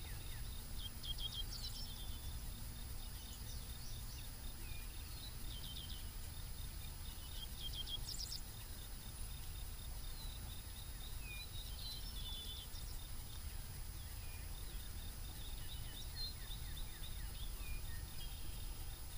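Faint outdoor ambience: scattered short bird chirps and a steady high insect trill over a low steady rumble.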